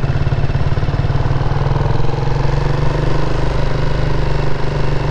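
Motorcycle engine running steadily while being ridden at road speed, heard from the rider's seat as a constant low engine note.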